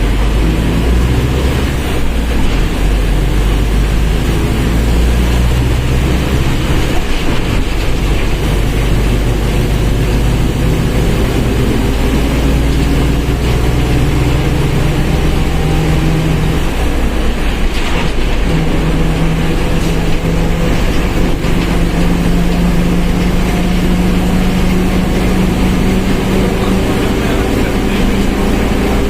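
Mercedes-Benz OF1721 BlueTec 5 bus under way, its diesel engine running under load. The engine note and a gear whine climb slowly in pitch as it gains speed, with a break about halfway through, likely a gear change. The whine is the differential that the recording sets out to capture.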